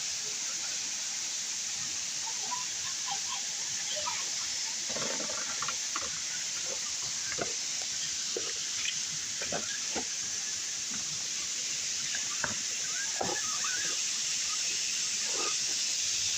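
Steady rush of flowing water, with scattered short clicks and brief sounds over it.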